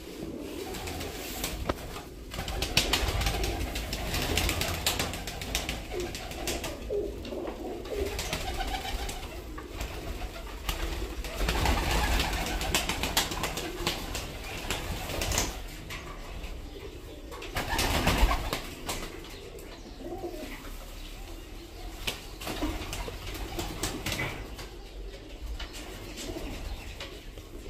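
A flock of domestic pigeons cooing, with wing flaps now and then and a few louder whooshing rushes.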